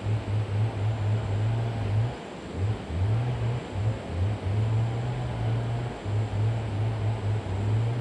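A low, steady motor drone that cuts in and out every second or so, over an even hiss.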